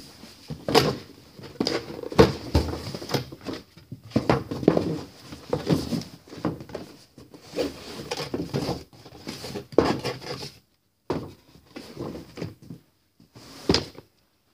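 Cardboard doll box and paper shopping bag being handled and shifted: irregular rustling, scraping and short knocks, with a few brief pauses near the end.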